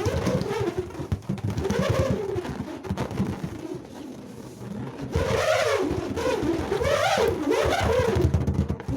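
Two hex nuts whirling around the inside of a large, tightly inflated balloon, making a buzzing howl whose pitch swoops up and down over a fast rattle. It eases off in the middle and grows louder again about five seconds in.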